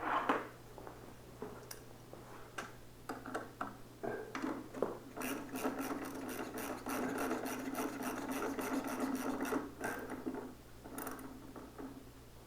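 Scattered metallic clicks and taps, then from about five seconds in a ratchet wrench clicking rapidly for about five seconds as a 12 mm bolt and nut are tightened on the exhaust pipe's mount.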